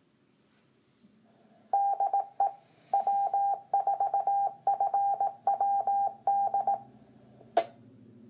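Amateur radio repeater sending beeps: a single mid-pitched tone keyed on and off in quick groups for about five seconds, in the manner of a Morse code station identifier. A sharp click follows near the end.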